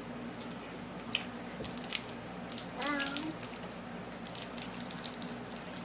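Crinkling and clicking of a plastic candy packet being handled and opened, over a steady low hum, with a brief child's voice about three seconds in.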